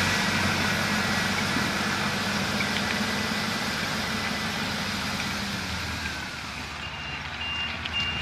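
Tractor engine running with the hiss of its rotating snow-sweeper brush, both fading. Near the end a high electronic warning beeper starts, in long, evenly spaced beeps.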